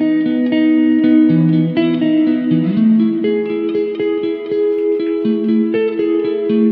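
Background instrumental music: a melody of plucked guitar notes, steady and unbroken.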